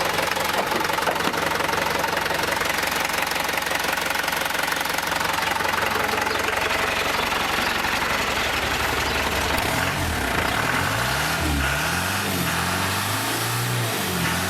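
Isuzu 2.8 turbo diesel engine running from cold, its diesel knock steady at idle. From about two-thirds of the way through, the engine speed rises and falls several times.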